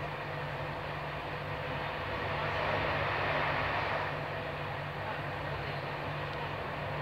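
Passenger train running, heard from inside a Corail coach: a steady low hum under a rushing rolling noise, which swells for a couple of seconds about two seconds in.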